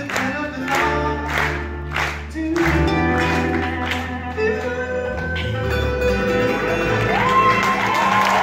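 Live acoustic band music: strummed acoustic guitars with violin, double bass and singing. The strumming gives way to held notes about two and a half seconds in as the song winds down, and audience applause starts to build near the end.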